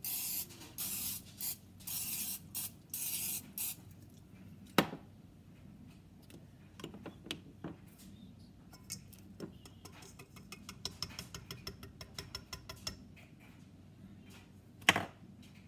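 Aerosol cooking spray hissing in a series of short bursts into a metal muffin pan over the first four seconds. Later a wire whisk clinks quickly against a metal mixing bowl, with a sharp knock near the end.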